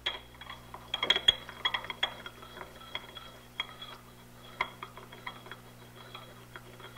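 Porcelain pestle knocking and scraping in a porcelain mortar as honey bee abdomens and distilled water are crushed into a paste. The taps are irregular and come thickest about a second in, then more spaced out.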